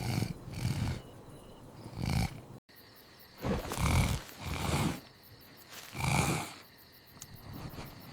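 Cartoon snoring sound effect from the sleeping bear: a series of low snores, with a brief gap about two and a half seconds in.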